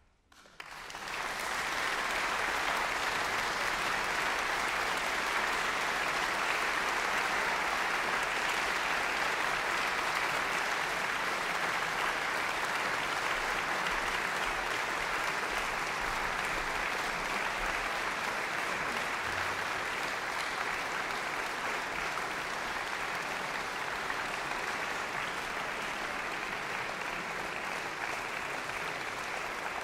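Audience applauding at the end of a piano concerto performance: clapping breaks out about half a second in, swells within a second or so, then holds steady.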